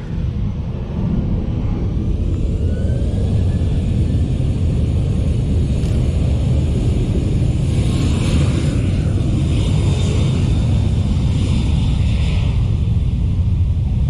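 Jet airliner engines rumbling low and steady, swelling over the first second, with a faint rising whine about two seconds in.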